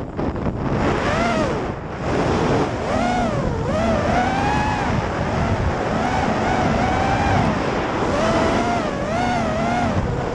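FPV freestyle quadcopter's brushless motors and propellers whining, the pitch rising and falling again and again as the throttle is punched and eased through turns. Heard from the onboard camera, with wind rushing over its microphone.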